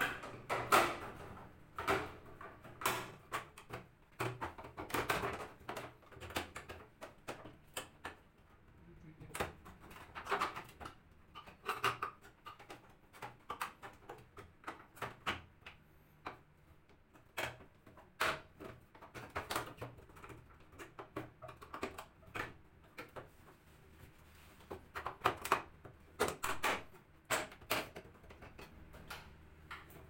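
Hard plastic clicks, knocks and rattles, irregular and scattered, as the plastic top panel of a Sharp top-loading washing machine is handled and pressed onto the cabinet.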